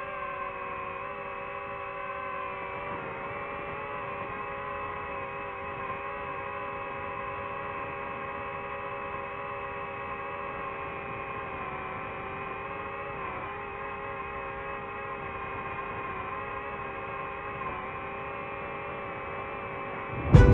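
DJI FPV drone's motors and propellers whining steadily in flight: several overlapping tones that dip and shift slightly in pitch now and then. Louder music cuts in at the very end.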